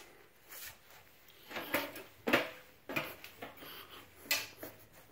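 A few short knocks and rustles, the loudest about two and a half seconds in.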